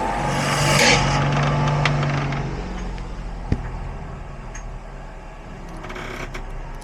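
A motor vehicle's engine revs up and passes, swelling to its loudest about a second in, then fades to a low hum. A few light clicks sound over it.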